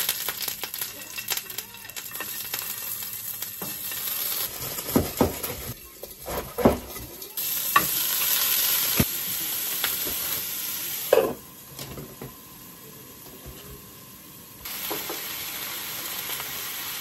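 Salmon and vegetables sizzling in oil in a frying pan, a steady hiss that drops quieter for a few seconds past the middle and comes back up near the end. Sharp knocks and clatter in the first half as food goes into the pan.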